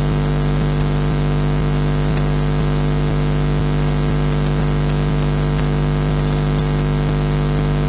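Steady electrical hum and buzz on a nest camera's audio line, with faint scattered crackles and ticks over it.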